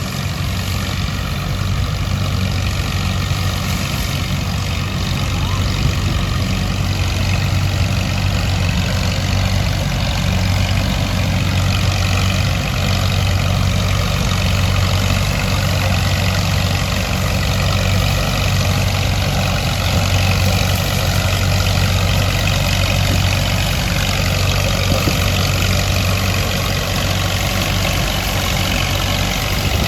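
Minneapolis-Moline harvesting machine running steadily while harvesting corn: a constant low engine drone under an even wash of machinery noise.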